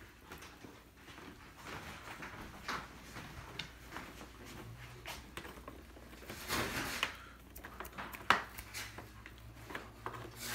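Scissors snipping through the packaging of a boxed Nerf blaster, with cardboard and plastic rustling as the box is handled: scattered small clicks and crinkles, a louder rustle about six and a half seconds in and a sharp snip a little after eight seconds.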